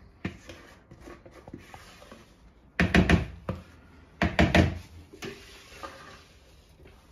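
Kitchen utensil knocking against cookware while cooked noodles are scraped out: two quick runs of sharp knocks, about three and four and a half seconds in, with softer clatter between.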